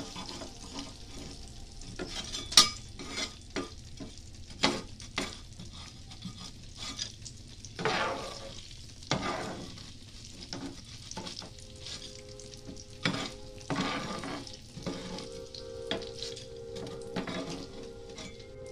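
Dried anchovies sizzling in hot oil in a nonstick frying pan, with a metal spatula repeatedly scraping and clinking against the pan as the fried fish are stirred and scooped out.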